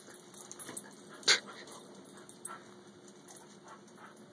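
English cocker spaniel giving one short, sharp yip about a second in while chasing bubbles.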